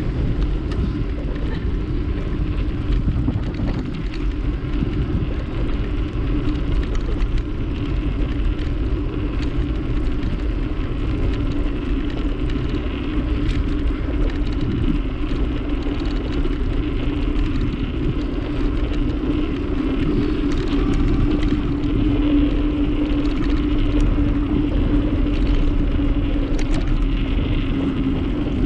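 Steady rumble of wind on the microphone and tyre noise from a moving bicycle, with a low hum running under it that grows a little stronger about three quarters of the way through.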